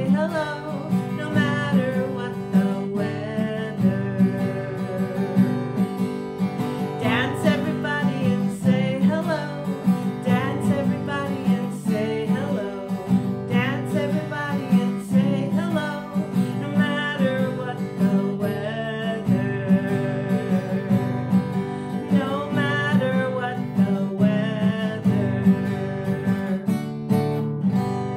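Acoustic guitar strummed continuously, with a woman singing a children's action song over it.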